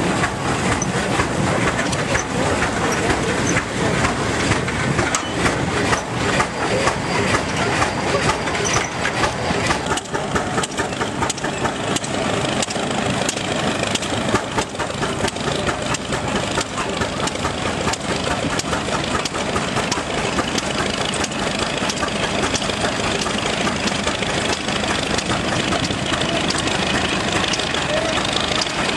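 Case steam traction engine running with its exhaust chuffing. Partway through it gives way to the steady running of an early Case tractor's engine as the tractor drives along.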